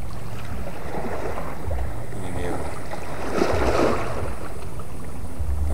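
Wind buffeting the microphone in uneven gusts, over water washing against the rocks of a sea groyne; a louder rush of noise about three and a half seconds in.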